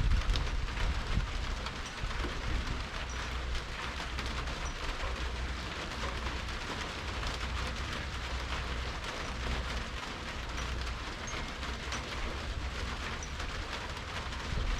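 Steady rain falling, with scattered drop ticks, and a low rumble that eases off about two seconds in.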